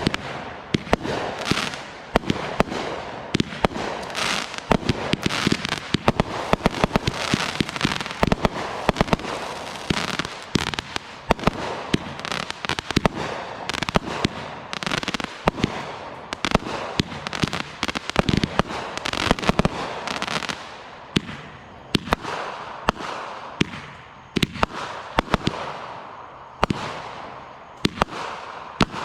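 Consumer fireworks going off in quick succession: many sharp bangs at irregular intervals, with crackling filling the gaps between them.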